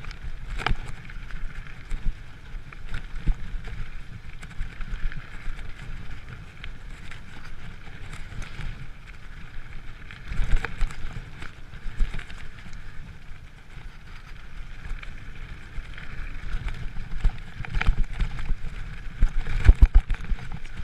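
Giant mountain bike riding fast down a dirt forest trail: tyres rumbling over the ground, with frequent knocks and rattles over bumps, loudest near the end.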